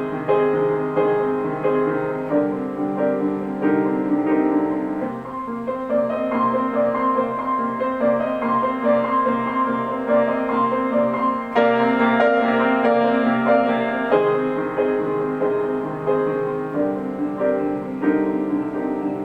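Kayserburg GH148 grand piano being played: a continuous flowing piece of sustained chords in the middle register under a melody line, with note changes every fraction of a second.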